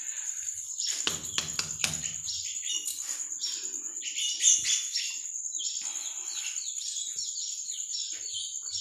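Many small birds chirping busily over a steady high-pitched whine, with a few sharp knocks around a second in.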